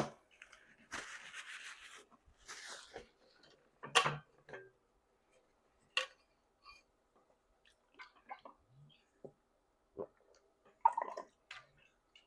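Close-miked mouth and eating sounds: a noisy slurp about a second in, then scattered wet mouth clicks and smacks.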